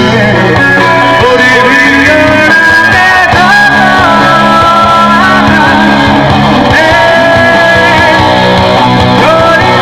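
Bangla rock band playing live: guitars, bass and drums, loud and steady, with a held lead melody line that bends and steps between notes.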